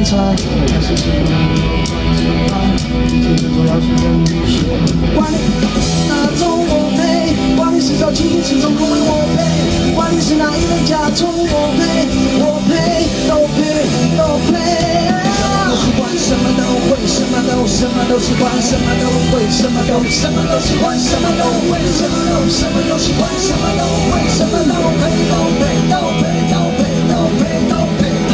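A live rock band playing through a large outdoor PA: male singing over electric guitars, bass and drums.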